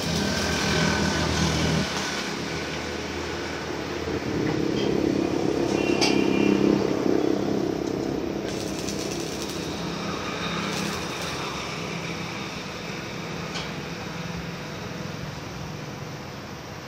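Electric arc welding on a steel gate frame, the arc crackling with a steady hum for about two seconds before it stops. Then a louder rumble rises and fades in the middle, with a few sharp metal clinks.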